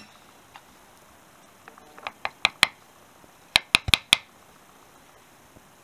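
Sharp metal taps: a corroded coolant thermo switch body knocked against the steel anvil of a bench vice to shake out the green, corroded remains of its switch contact. Four taps come about two seconds in, then five quicker ones a second and a half later.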